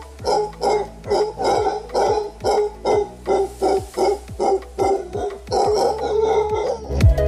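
Howler monkey howling: a run of deep, rhythmic, grunting roars at about two a second. A drum-and-bass music track with heavy drums cuts in near the end.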